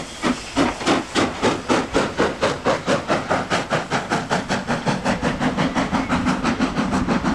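Saddle-tank steam locomotive pulling away, its exhaust beats quickening steadily from about three to six a second, with a hiss of escaping steam.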